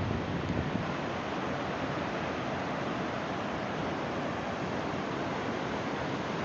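Steady rush of a tall waterfall in heavy rainy-season flow, the Hirayu Great Falls' 64 m straight drop and the river below it. There is some extra low rumble in the first second.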